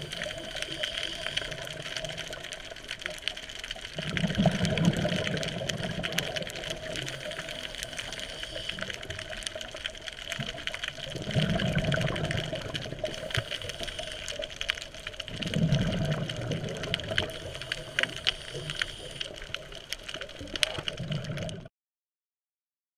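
Scuba diver breathing through a regulator, recorded underwater: four rushes of exhaled bubbles over a steady underwater hiss. The sound cuts off suddenly near the end.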